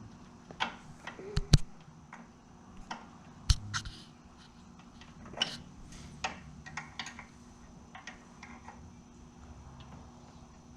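Hand tools clinking and knocking against metal parts of the ATV's rear axle, as irregular sharp clicks with two louder knocks early on.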